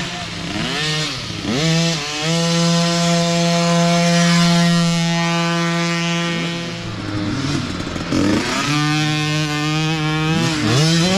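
Small dirt bike engine running close by at high revs. Its pitch dips and climbs as the throttle is rolled off and back on in the first two seconds, holds high and steady, then falls and rises again about seven to nine seconds in.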